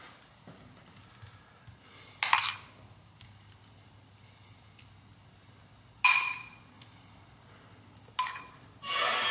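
A spoon clinks sharply against a bowl three times while creamed corn is scooped out, each strike ringing briefly. Background music comes in just before the end.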